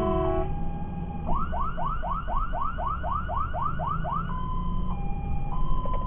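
Fire engine's emergency warning system: a multi-tone air horn cuts off just after the start, then the electronic siren sounds a high-low two-tone, switches to a fast yelp of quick rising sweeps about four a second for some three seconds, and returns to the two-tone. The truck's engine rumbles underneath.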